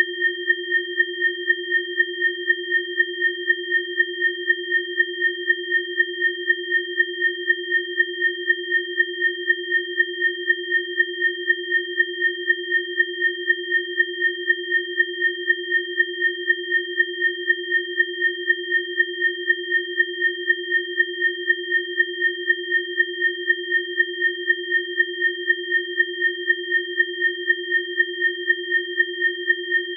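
Synthesized biofrequency tones: a low pure tone with two higher, thinner pure tones held together at a constant pitch, pulsing evenly several times a second.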